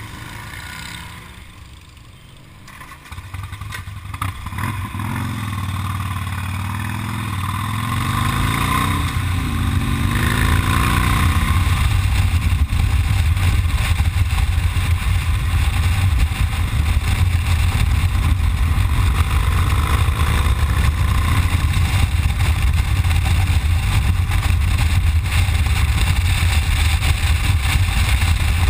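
Cruiser motorcycle engine pulling away from a stop, its note rising through the gears over the first ten seconds or so, then running steadily at cruising speed with wind rushing over the microphone.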